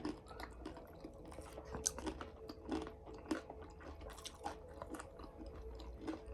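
A person chewing crunchy snack food: many short, irregular crunches and mouth sounds, with a faint steady hum underneath.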